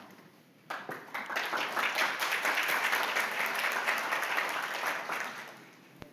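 Audience applauding, rising quickly about a second in and dying away after about five seconds. A single sharp click near the end.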